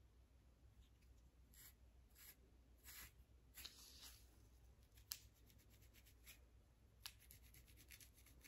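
Soft scratching of a fine-tooth metal comb scraped against a flaky, dandruff-covered scalp. Single strokes come every half second or so, then a quick run of rapid scrapes near the end.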